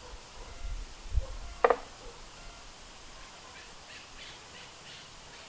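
A bird gives one short, loud, harsh call about a second and a half in, after a brief low rumble of wind on the microphone; faint high chirps of other birds follow near the end.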